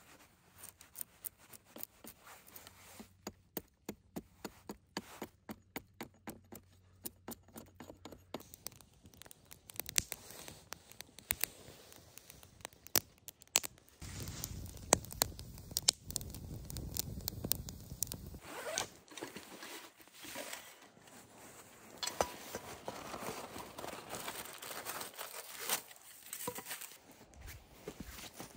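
A knife working a short wooden stick on a log, with sharp repeated clicks and scrapes about two to three a second, thinning out after several seconds. Near the end, footsteps crunch in snow.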